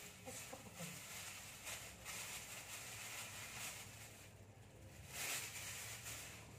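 Thin plastic bags and disposable plastic gloves rustling and crinkling as vegetables are handled and taken out, over a low steady hum.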